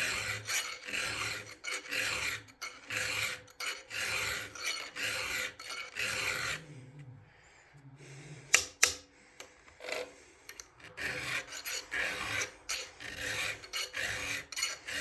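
Chainsaw chain being sharpened with a hand file: repeated rasping file strokes across the cutters. Partway through the strokes stop for a few seconds, with a couple of sharp clicks, then the filing starts again.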